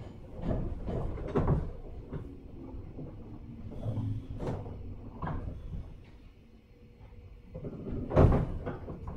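Inside a JR 103 series 1500-subseries electric train: irregular knocks and clunks from the car and its running gear over a low steady hum, the loudest knock about eight seconds in.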